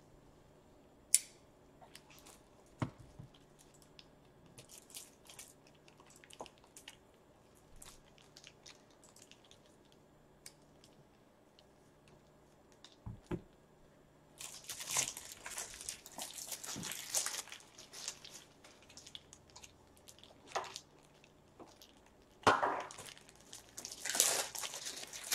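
Hands handling crinkly plastic at a desk: a couple of sharp clicks early, scattered light ticks, then two stretches of crinkling rustle, the second near the end.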